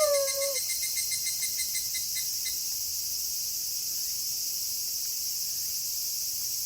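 A wolf howl trails off with a falling pitch in the first half second, leaving a steady, high night chorus of crickets. A faster pulsing chirp within it stops about two and a half seconds in.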